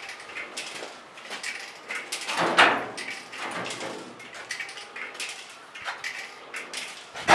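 Irregular knocks and clatters, with a louder bang about two and a half seconds in and another sharp one near the end.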